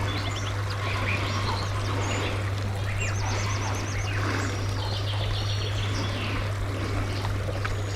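Several small songbirds singing, with overlapping chirps and quick trills, over a steady low hum.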